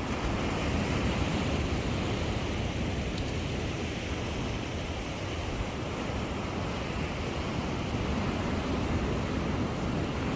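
Waves breaking on a sandy beach: a steady, unbroken wash of surf.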